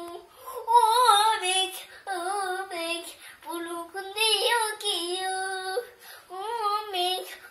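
A young girl's voice reciting an Assamese children's poem in a sing-song chant, in several short melodic phrases with brief pauses between them.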